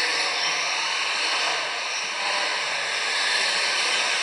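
Electric 1/10-scale RC touring cars racing on a carpet track: a steady whine of their motors mixed with tyre hiss.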